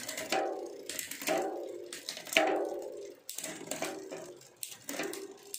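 Mountain bike drivetrain running with the rear wheel spinning: a KMC 12-speed chain over a Ztto cassette and Shimano SLX rear derailleur, whirring and ticking in surges about once a second as the cranks are turned. The chain runs smoothly, with no chain drop, and is quiet apart from the normal drivetrain noise.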